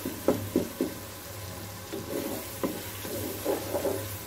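A wooden spatula stirring and scraping masala frying in oil in an aluminium pressure cooker, the masala sizzling underneath. Several sharp knocks of the spatula against the pot, three of them in the first second and one more a little past the middle.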